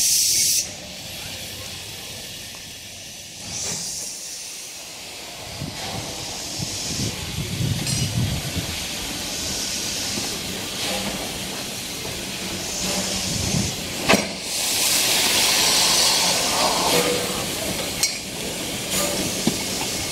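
Steam locomotive letting off steam: hissing comes in repeated surges, the longest and loudest about two-thirds of the way through. A low rumble sounds around the middle, and a single sharp metallic knock comes just before the loudest hiss.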